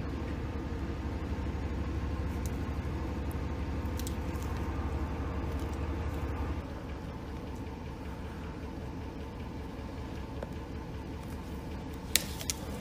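Steady low rumble with a faint hum, easing off a little about halfway through. A few sharp clicks come near the end.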